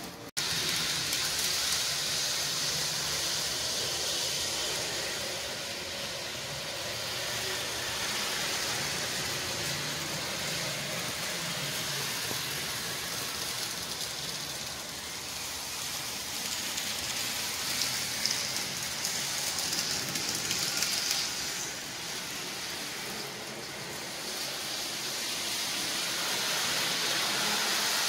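Steady hissing background noise with a faint low hum, staying at about the same level throughout.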